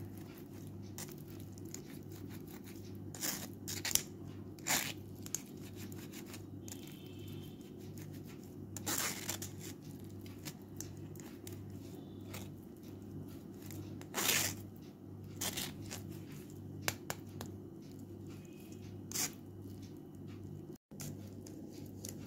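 A spoon scraping and pressing wet orange-peel paste through a steel mesh strainer, giving short, irregular rasping scrapes over a steady low hum.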